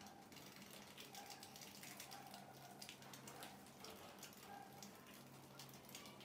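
Near silence: a faint steady low hum with scattered soft clicks.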